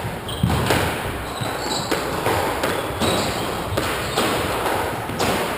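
A squash rally: the hollow rubber ball knocks off the racket strings and the court walls again and again, at irregular intervals about half a second to a second apart, each knock echoing in the enclosed court.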